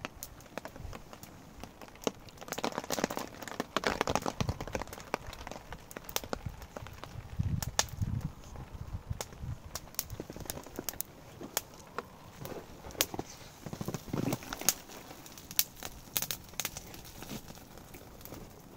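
Wood fire crackling in a small titanium wood stove, with irregular sharp snaps and pops. A few bouts of rustling handling noise come and go.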